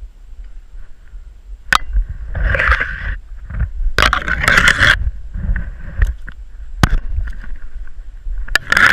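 Scraping and rustling close to a worn GoPro Hero 3 as the player moves, in three rough bursts a second or so long. Three sharp clicks are spread through it.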